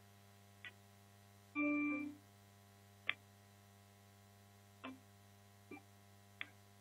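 A domestic cat gives one short meow about a second and a half in, amid a few faint scattered clicks and taps.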